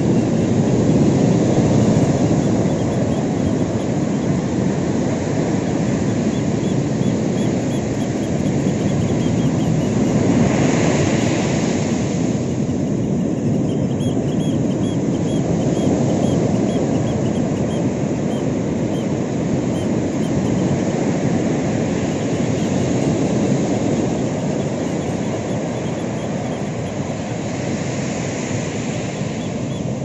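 Ocean surf on a sandy beach: waves breaking and washing up the shore in a continuous low rushing noise, with a brighter hissing wash of a breaking wave about ten seconds in and again near the end.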